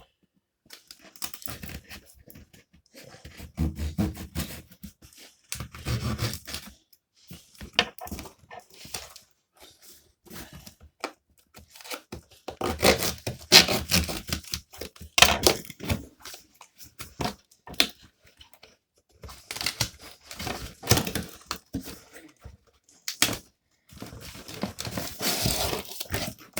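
A mail package being torn open by hand: irregular ripping and rustling of the packaging in short bursts, with a few heavier handling bumps.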